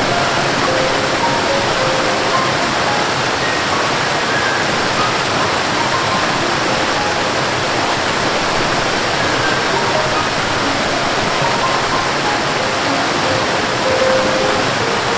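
Steady, unbroken rush of water pouring down a waterfall.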